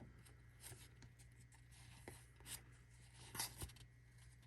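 Faint scattered ticks and rubbing of trading cards being slid and flipped by hand, over a low steady hum.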